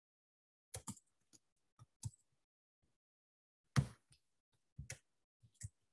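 Scattered computer keyboard and mouse clicks, single short clicks at irregular intervals with dead silence between them; the loudest comes just under four seconds in.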